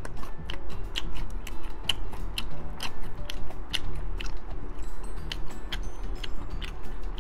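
Close-up chewing and biting into crunchy double-fried Korean fried chicken. Sharp crackles of the crisp batter come irregularly, a few times a second.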